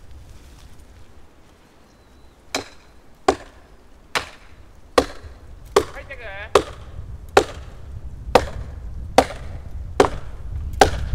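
A plastic felling wedge in the back cut of a large cedar being driven in with steady repeated blows, about one strike every 0.8 seconds, starting about two and a half seconds in. Wedging like this lifts the tree toward its felling direction.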